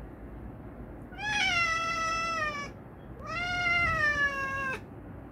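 Domestic cat yelling at the person: two long, loud meows about a second and a half each, one after the other, each sliding slightly down in pitch at the end.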